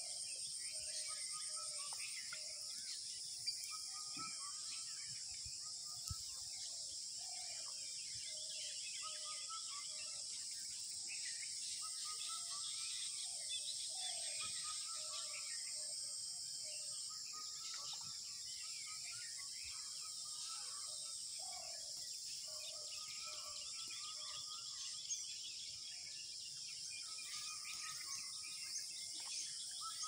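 Pond-side animal chorus: a steady high-pitched insect drone throughout, over which short calls repeat in quick runs of several notes every second or two. There are a few faint knocks, about three seconds in and near twenty-five seconds.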